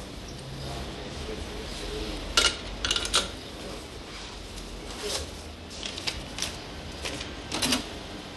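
A few sharp clicks and clinks over a steady café background hum, from handling a rotary wall payphone and its handset; the loudest come about two and a half to three seconds in and again near the end.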